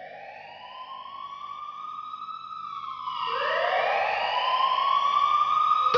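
Synthesizer tones sliding slowly upward like a siren sweep. A second rising tone enters about three seconds in, and the sound grows louder.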